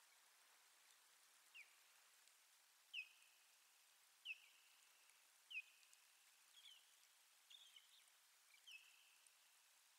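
Faint osprey calls: a series of about seven short whistled notes, each slurring quickly downward and trailing off, roughly one every second and a half, the last few broken and doubled.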